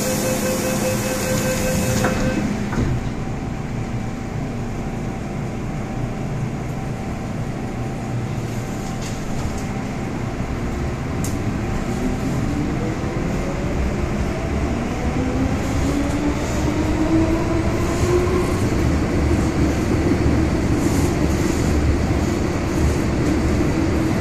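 MTR M-Train electric multiple unit running, heard from inside the car. A steady tone stops about two seconds in, and from about a third of the way through the traction motors whine in several rising pitches as the train accelerates, over the rumble and clatter of the wheels on the track.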